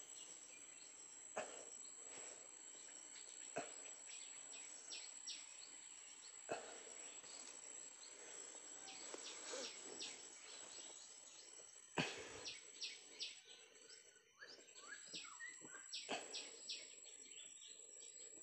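Steady high-pitched drone of insects, with a few knocks and scuffs from digging in the soil, the loudest about twelve seconds in.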